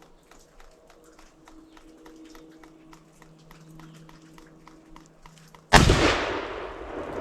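A single shotgun blast near the end, sudden and much the loudest thing, with a long echoing decay: a shot at a strutting tom turkey that drops the bird.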